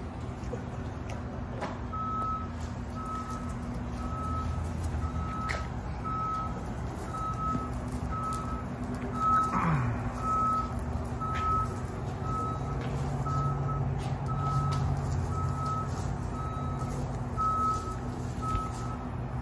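Forklift backup alarm beeping steadily, about two beeps a second, starting about two seconds in, over a low steady hum. A brief knock about nine and a half seconds in is the loudest moment.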